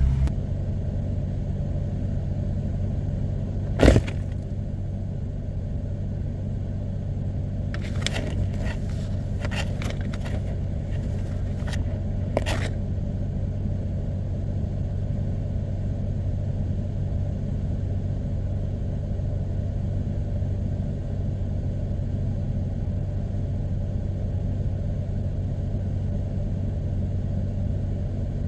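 Vehicle engine running steadily with a low hum, not revving. A single sharp knock about 4 s in and a scatter of clicks and knocks from about 8 to 12 seconds in.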